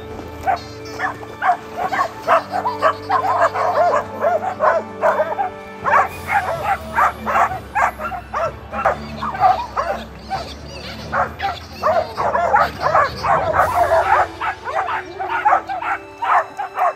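Several dogs barking over and over, several barks a second, over background music.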